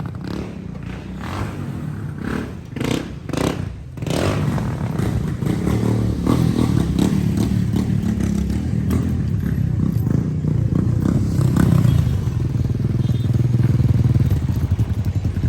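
Motorcycle engine running with a steady low rumble that gets louder from about four seconds in. A few knocks and clatters come in the first few seconds.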